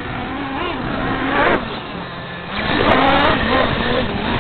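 Radio-controlled off-road race cars running on the track, their motors' pitch rising and falling as they accelerate and brake, getting louder past the middle.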